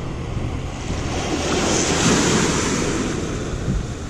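A small wave washing onto the shore, a rushing hiss that swells about halfway through and then eases off, with wind buffeting the microphone underneath.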